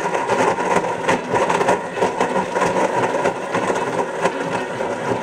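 Blendtec countertop blender running at full power, its motor giving a steady whine over the churn of ice, fruit and milk being blended into a smoothie.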